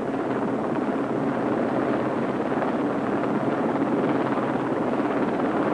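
Westland Sea King HAR3 rescue helicopter in a low hover over the sea: steady rotor and engine noise that holds even throughout.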